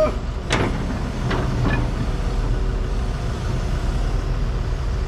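Excavator diesel engine running steadily, with three sharp knocks in the first two seconds.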